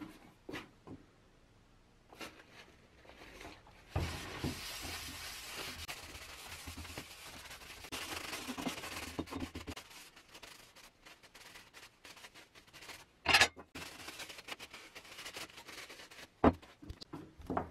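A paper towel with acetone rubbed hard over stripped cast-metal balance-scale parts to degrease them, in a long stretch of wiping from about four seconds in, then lighter rubbing. Two sharp knocks of metal parts being handled come in the second half.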